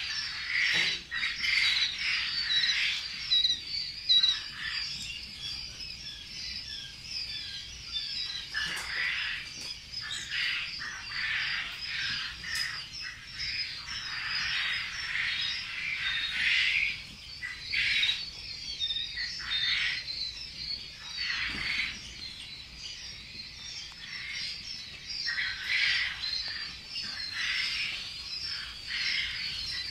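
Hundreds of young poultry chicks peeping at once: a constant, dense chorus of overlapping high chirps that swells and dips without ever pausing.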